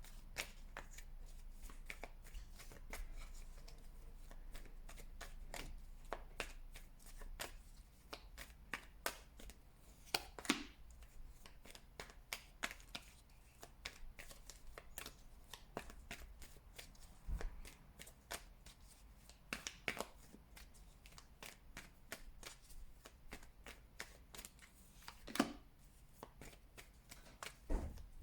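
Tarot cards being shuffled by hand: a quiet, continuous run of small flicking clicks, with a few louder snaps here and there.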